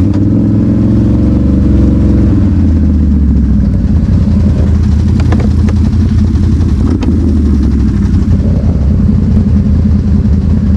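ATV engine running close by, its pitch rising and falling briefly in the first couple of seconds, then holding a steady low note.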